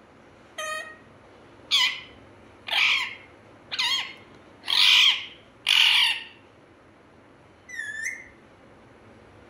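Male ring-necked parakeet giving a string of six loud, harsh squawks about a second apart, then a single softer call near the end.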